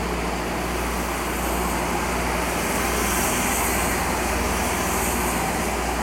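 Steady rushing noise of aquarium filtration and water flow with a low hum underneath, growing a little louder and hissier midway.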